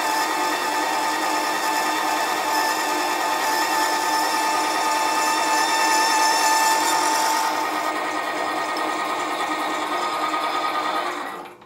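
Sieg SC4 mini lathe running, with a boring bar cutting the inside edge of a recess in a cast iron piston: a steady motor whine over the scrape of the cut. The higher hiss drops away about seven and a half seconds in, and the sound cuts off near the end.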